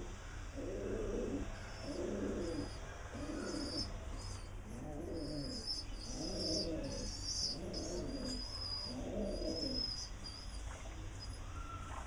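Rock pigeons cooing: a series of low coos, about one a second, stopping about ten seconds in, with faint high-pitched chirps over them.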